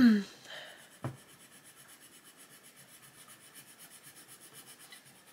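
Staedtler Design Journey coloured pencil scribbled rapidly back and forth on paper, shading a grey swatch, a faint, even scratching of several strokes a second. A brief voiced sound falling in pitch opens it, and a light tap comes about a second in.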